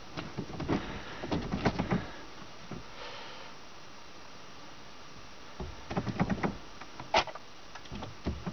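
Scattered clicks, knocks and rustles of handling inside a car, in two clusters with a quiet stretch between; one sharp click stands out about seven seconds in.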